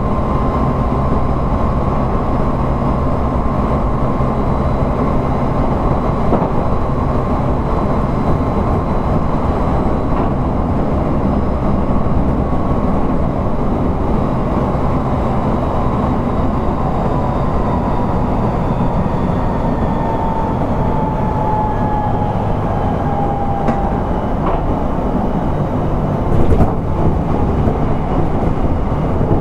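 Odakyu 1000 series electric train running, heard from aboard motor car DeHa 1311: a steady rumble of wheels on rail with a motor whine that slowly drops in pitch in the second half. A single short knock comes near the end.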